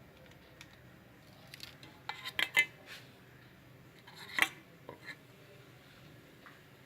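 A spoon clinking against the cooking pan while scooping out thick, cooked-down ginger-lemon-honey syrup for dropping. There are a quick run of about four ringing clinks around two seconds in, one louder clink a little past four seconds, and two faint taps just after.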